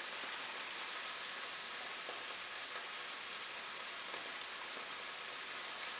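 Chicken and peppers frying in a pan on a gas hob: a steady, even sizzle.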